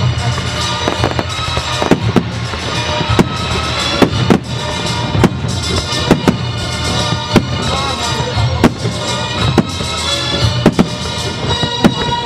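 Fireworks shells bursting in a quick, irregular series of sharp bangs, about one or two a second, with music playing throughout as the soundtrack of a pyromusical display.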